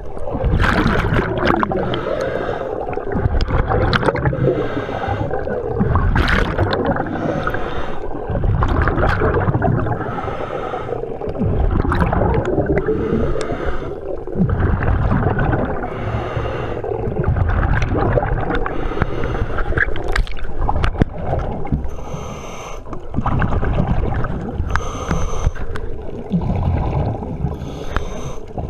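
A scuba diver's regulator breathing underwater: repeated breaths, with exhaled bubbles gurgling and rumbling and a hiss on the inhalations.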